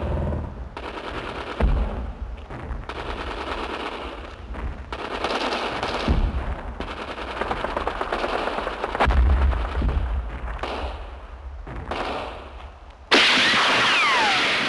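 Film battle sound: rapid machine-gun fire and gunshots in dense stretches that cut in and out abruptly. Near the end a sudden, louder burst carries several falling whistles before the sound fades away.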